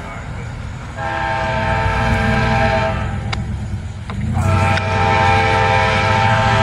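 Amtrak diesel locomotive's multi-tone air horn sounding two long blasts, the second running on past the end, over the low rumble of the approaching train.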